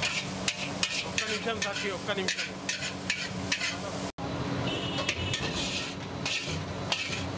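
Repeated clinks and scrapes of a metal ladle against a metal kadai over the sizzle of frying, with a brief dropout about four seconds in.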